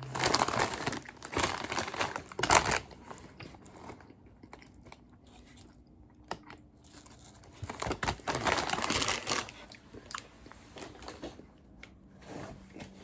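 A crinkly chip bag rustling and crisp potato chips being crunched and chewed, in two loud spells, at the start and again about eight seconds in, with quieter crackles between.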